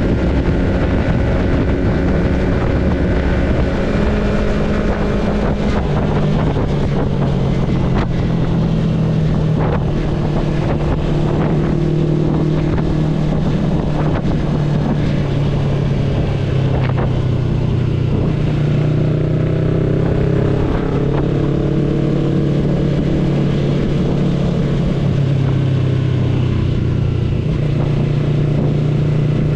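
Yamaha sport motorcycle's engine running at a steady cruising speed, heard from the rider's seat with wind rushing over the microphone. The engine note drops a step about five seconds in, then holds fairly steady.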